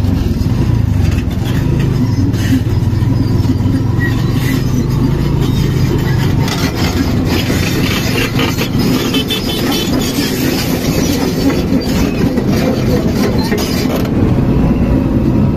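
Motorcycle engine running over a rough dirt road, mixed with the diesel engine and clanking steel tracks of a Hyundai crawler excavator close alongside. A steady low engine hum gives way to noisier clatter about halfway through.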